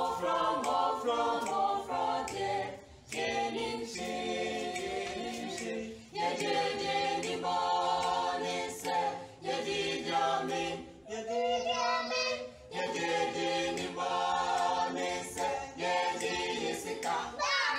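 A group of children singing a song together without instruments, in phrases of a few seconds with short breaks between them.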